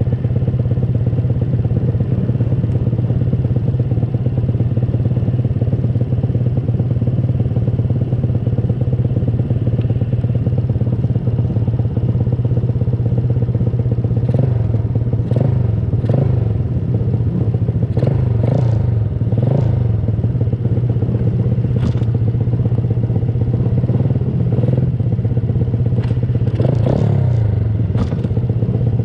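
Pit bike engines running at a steady, even pitch, with scattered short knocks and clatter through the second half.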